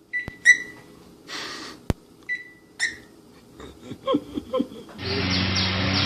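Cockatiel giving a few short whistled chirps, with a brief hiss in between. About five seconds in, a louder steady rushing noise with a low hum starts.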